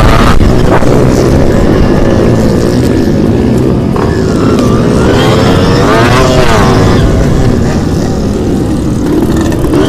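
Two-stroke motocross bike engine revving hard under racing load, its pitch rising and falling as the throttle opens and closes, with one climb around the middle and another near the end.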